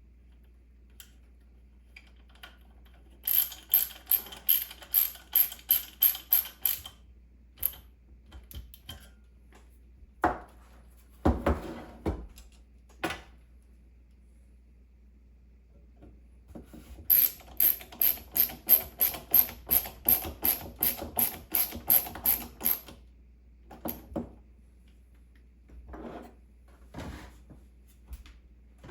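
Small ratchet mechanism clicking in two runs of sharp, evenly spaced clicks, about three to four a second, the second run longer. Between the runs there is a dull knock.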